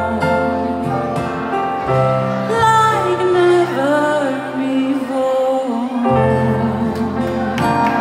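A woman singing live into a microphone with band accompaniment: long, held vocal notes that waver and bend, over sustained low notes.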